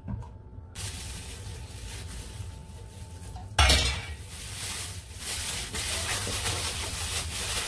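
Thin plastic bag crinkling and rustling as hands knead a marinating chicken through it, with a sudden loud crumple a few seconds in.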